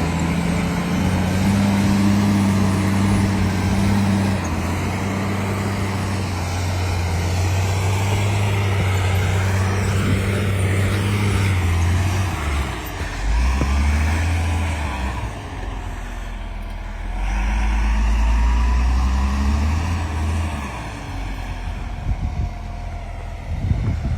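Engine of a heavy snow-clearing machine running under load, its low note dropping and rising a few times, over a steady rushing noise.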